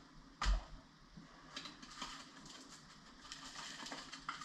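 Dry rub being shaken from a shaker jar onto a raw pork butt, a faint rattling patter that grows near the end, with one sharp knock about half a second in.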